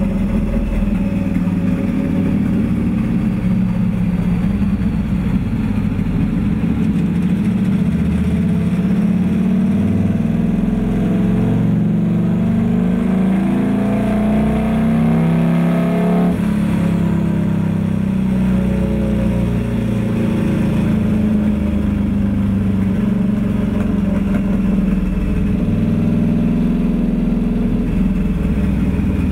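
Turbocharged Harley-Davidson VRSCSE2 Screamin' Eagle V-Rod's liquid-cooled V-twin running under load on a chassis dyno. The engine note holds steady, rises in pitch for several seconds around the middle, then drops suddenly.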